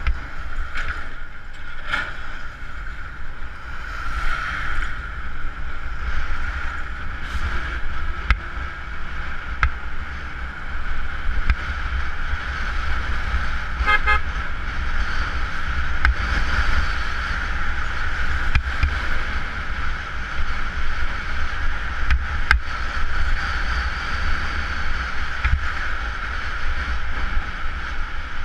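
Honda CBR motorcycle riding along a road, heard from a GoPro mounted on the bike: steady engine and road noise with low wind rumble on the microphone and occasional knocks from bumps. A short horn toot sounds about halfway through.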